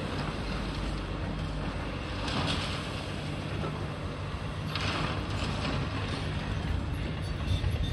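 Komatsu demolition excavators, a PC290 and a high-reach machine, with their diesel engines running steadily. Two short bursts of rubble crunching and scraping come about two and a half and five seconds in.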